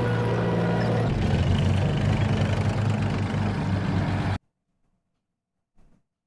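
Tank engine running steadily at a low, heavy pitch, cutting off abruptly about four seconds in.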